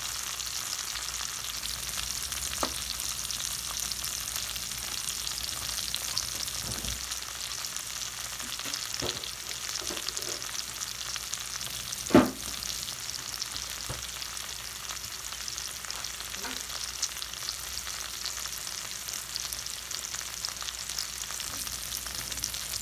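Bell peppers and onions sizzling in oil in a stainless steel pan on medium-high heat: a steady frying hiss with small crackles. A single sharp knock about twelve seconds in.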